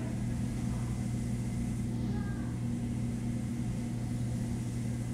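Steady low machine hum, a constant drone with no change in pitch or level.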